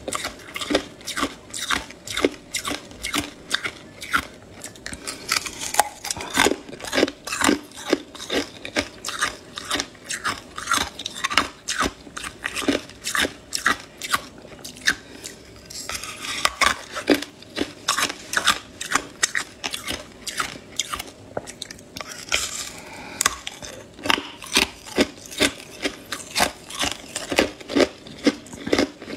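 Hard, clear ice crackling and crunching close up in a quick, uneven run of sharp cracks, with ice rubbing and scraping against the fingers.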